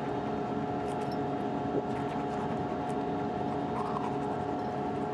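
Steady hum of the International Space Station's cabin fans and equipment, holding several fixed tones, with a few faint scratches of a toothbrush brushing teeth.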